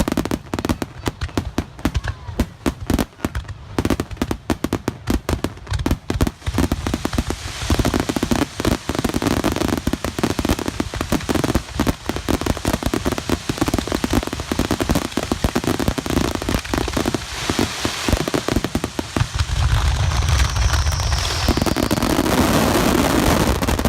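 Fireworks going off at close range: a fast run of sharp bangs and crackling that thickens into a dense, continuous crackle, with heavy low booms added from about twenty seconds in.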